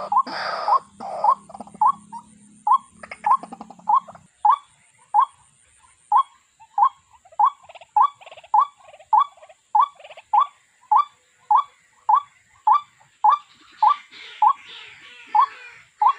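A waterbird of the rail family calling: a short single note repeated steadily, about twice a second. Louder falling calls open it, and then the repeated notes go on with no change in pace.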